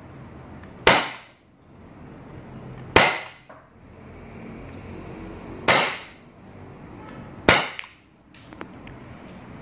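CO2-powered Glock 17 replica air pistol firing steel BBs: four sharp shots at roughly two-second intervals, each dying away quickly.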